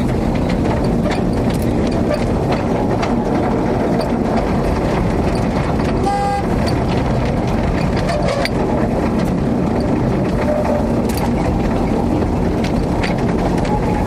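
Narrow-gauge forest-railway motor car running along the track: a steady engine-and-running rumble with occasional sharp clicks. About six seconds in comes one short horn toot, about half a second long.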